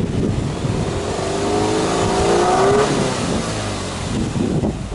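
Subaru Impreza WRX STI's turbocharged flat-four boxer engine revved once with the car standing still: the exhaust note climbs for about two seconds, then drops back to idle near the end.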